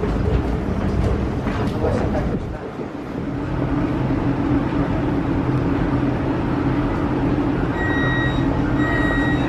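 A metro train standing at the platform with its doors open, its equipment giving a steady hum. Near the end a repeated high beeping starts: the warning that the doors are about to close.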